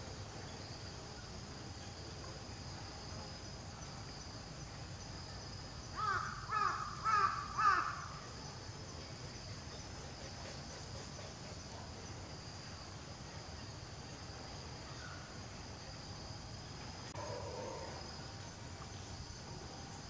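A crow cawing four times in quick succession, each caw falling in pitch, over a steady chirring of insects.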